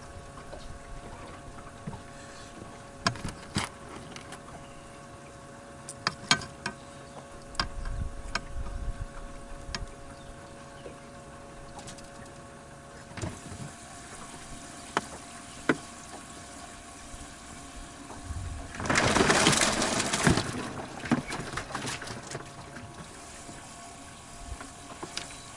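Knocks and taps of gear being handled on a bass boat's deck over a steady faint hum, with a short burst of splashing water a little past the middle that is the loudest sound.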